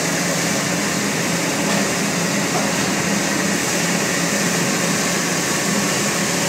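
Steady, even machine noise from a running jewelry chain soldering tunnel furnace line, a broad hum with a faint low tone underneath.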